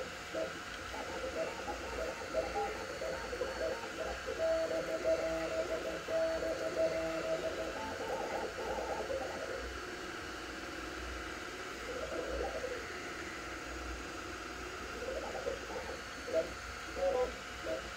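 Two Trees Sapphire Plus 3D printer printing at 130 mm/s: its stepper motors whine in tones that shift in pitch and come and go as the print head changes direction, over a steady fan hiss.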